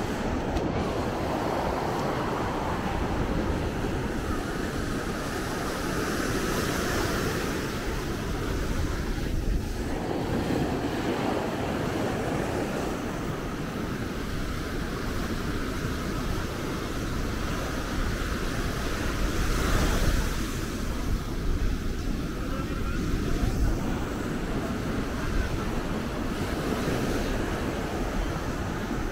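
Atlantic surf breaking and washing up the beach, rising and falling every few seconds, with wind rumbling on the microphone.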